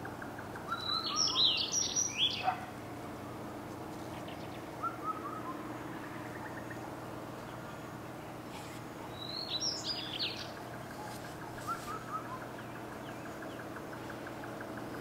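A bird singing two short bursts of high, quick chirping notes, about a second in and again near ten seconds, with a few fainter single chirps between, over a steady faint outdoor background.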